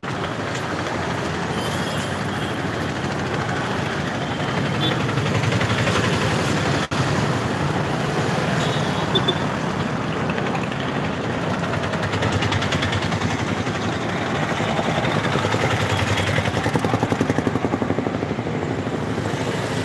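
Steady noise of busy road traffic, with vehicle engines passing close by.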